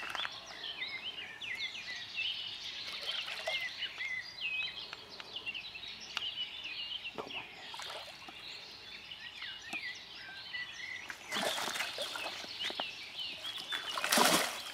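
Birds chirping and singing in a busy chorus, with a hooked carp splashing at the surface twice near the end, the second splash the loudest.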